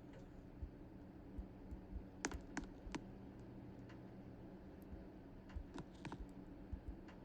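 Ceiling fan motor humming steadily, with scattered light clicks, a cluster of three about two to three seconds in.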